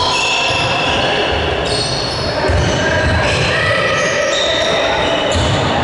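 Basketball game in a gym: the ball bouncing on the hardwood court again and again, with short high-pitched squeaks and a hall's background din over it.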